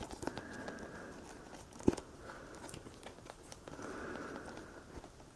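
Rustling and scraping of a boxed disc set's cardboard and plastic packaging being handled and pulled apart, with scattered light clicks and one sharp knock about two seconds in.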